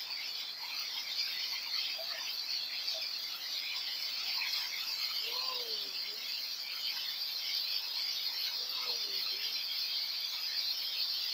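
Hailstones falling thickly onto a paved street, a dense steady crackle of countless small impacts.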